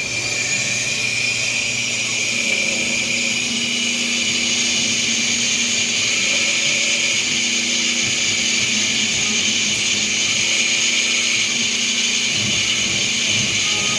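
Essilor Mr. Blue ophthalmic lens edger milling a spectacle lens: a steady high whine over a hissing grind, starting at the beginning and holding level.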